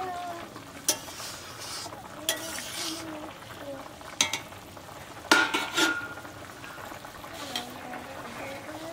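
Metal spatula stirring and scraping a steel kadai of thin, simmering curry, with several sharp metal-on-metal clinks; the loudest clinks come a little past halfway.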